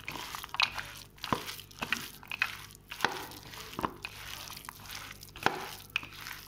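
A hand squishing raw peanuts through a thick, wet spice paste in a plate, with irregular sharp clicks of peanuts knocking against the plate.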